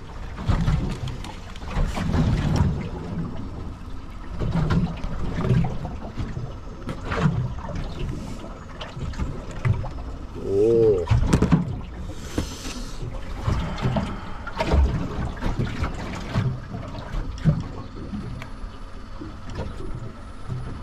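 Small boat moving on choppy water: irregular low thumps and knocks over a steady wash of water and wind noise. A short wavering tone sounds about eleven seconds in, and a brief hiss follows.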